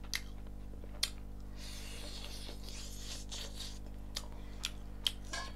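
Close-miked eating of curried chicken by hand: soft chewing with a few sharp mouth clicks and smacks, and a rasping, rubbing stretch in the middle as the meat is torn and chewed.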